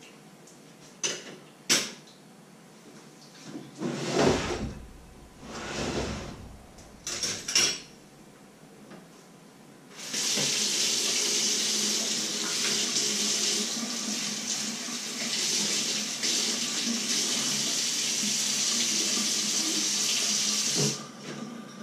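Kitchen tap running steadily into a sink, starting about ten seconds in and shutting off near the end. Before it, a few knocks and clattering at the sink.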